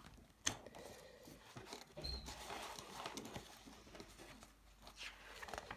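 Pages of a board game rulebook being handled and turned: soft paper rustling and handling noise, with a light tap about half a second in.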